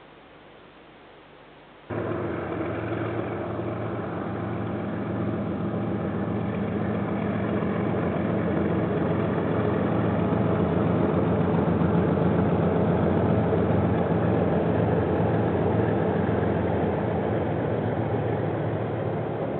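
Diesel locomotive engine of a passing KiwiRail train, a steady low drone that cuts in abruptly about two seconds in. It grows louder toward the middle and eases slightly near the end.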